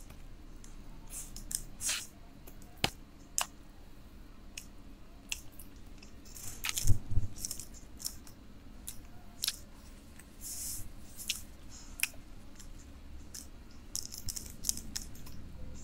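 Close-miked chewing and wet mouth clicks of a man eating fast food. About seven seconds in, a louder paper rustle with a bump as a paper napkin is pulled out and handled.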